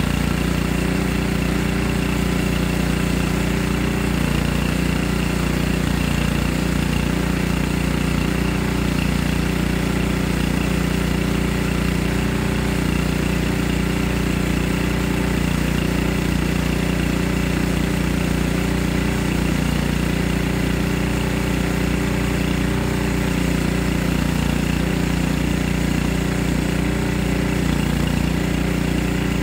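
Small gasoline engine on a portable band sawmill running steadily at an unchanging speed.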